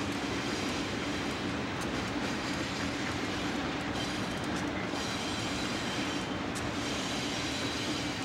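Conrail GE diesel-electric locomotives running past under power, a steady engine drone with faint clicking from the wheels over the rail joints.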